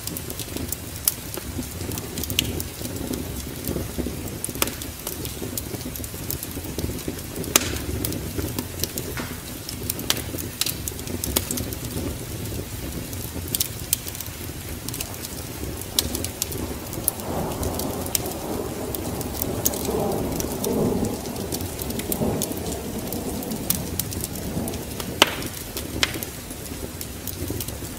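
Wood fire crackling with frequent sharp pops, over a steady low rain-and-wind rumble. About two-thirds of the way through, a louder wavering rumble swells up for several seconds and then dies away.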